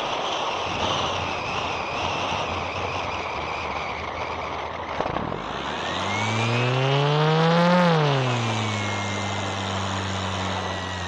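Onboard sound of the E-flite Cessna 150's electric motor and propeller with wind rushing past. About six seconds in, the motor note rises in pitch to a peak and then falls back, settling into a steady lower hum near the end.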